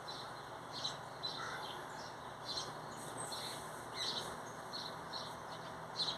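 Songbirds chirping: short, high calls about once or twice a second over a steady background hiss.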